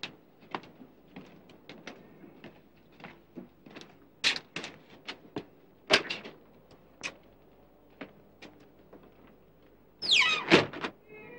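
Footsteps and knocks on a hard floor as a door is handled, ending with a door squealing on its hinges in a falling squeal and banging shut, the loudest sound here.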